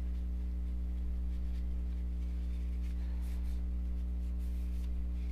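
Steady low electrical hum, with faint light rubbing sounds around the middle: a cloth wiping old pivot grease off a Sebenza's titanium handle slab.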